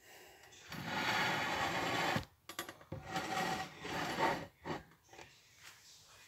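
Close rubbing and rustling right by the microphone, in two stretches of about a second and a half each, the first starting just under a second in.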